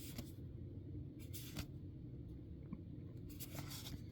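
Trading cards being slid one past another by hand, three soft swishes over a low steady hum.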